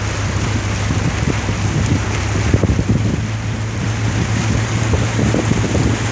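Boat motor running with a steady low hum as the boat travels through floodwater. Irregular gusts of wind buffet the microphone.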